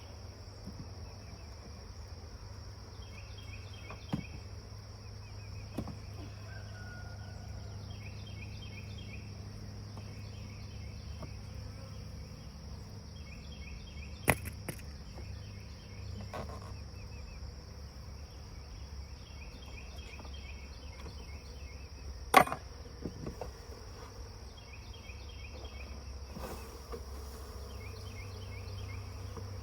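Honeybee swarm buzzing steadily, with short chirps repeating every few seconds over it. A few sharp knocks break in, the loudest about two-thirds of the way through.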